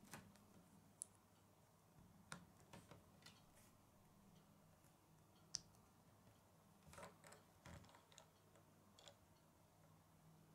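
Small plastic Lego bricks being handled and pressed together: faint, scattered clicks, with a sharper one past the middle and a cluster of them later on, over a faint low hum.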